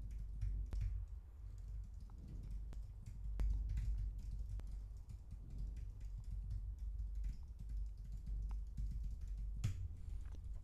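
Typing on a computer keyboard: an irregular run of keystroke clicks, with a slightly louder key press near the end.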